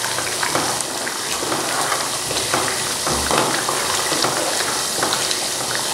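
Bean curry simmering in a metal pot on the stove, with a steady sizzling hiss. A steel spoon stirs it, making light scrapes and clicks against the pot.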